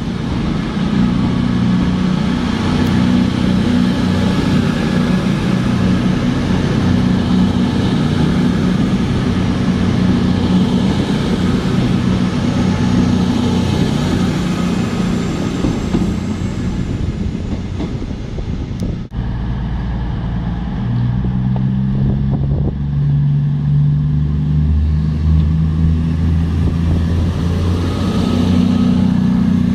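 CrossCountry Voyager diesel multiple unit moving through the station, its underfloor diesel engines running with a steady low drone over wheel and rail noise. About two-thirds of the way through the sound drops out for a moment, and the engine drone then goes on with a shifting pitch.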